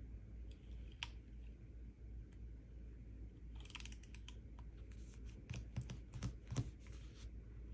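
White-out correction tape rolled across planner paper: a light click about a second in, then two spells of short scratchy strokes with small clicks from the dispenser's gears.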